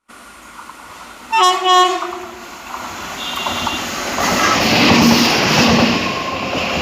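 A locomotive horn sounds about a second in, in one long, loud blast, then a train runs past at speed. The noise of its wheels on the rails builds to its loudest about five seconds in.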